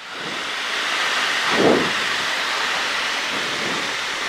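Steady rush of wind past an open-sided light aircraft cockpit as it glides in with the engine throttled back to idle. A short, louder sound stands out about a second and a half in.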